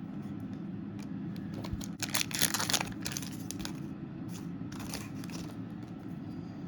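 A foil trading-card pack wrapper crinkling and tearing as it is opened. There is a loud burst of crinkling about two seconds in and a shorter one near five seconds, with small rustles and clicks of handling in between.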